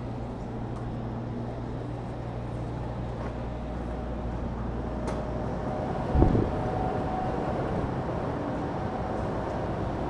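A vehicle engine running with a steady low hum, with a single thump about six seconds in.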